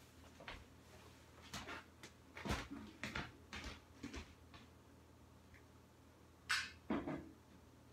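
Scattered light knocks and clicks of someone handling things in a kitchen, out of view, with a louder short scrape about six and a half seconds in and a thump just after it.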